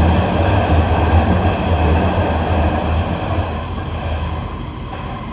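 Shenzhen Metro Line 1 train running, heard from inside the car: a steady low rumble with noise from the wheels and rails, easing off about four seconds in.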